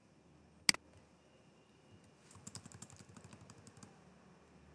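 One sharp click, then a computer keyboard being typed on in a quick run of faint keystrokes from about two seconds in.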